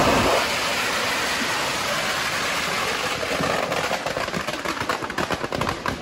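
Fireworks packed into a burning Ravan effigy going off: a dense, steady rushing hiss, with rapid crackling firecracker pops growing thicker toward the end.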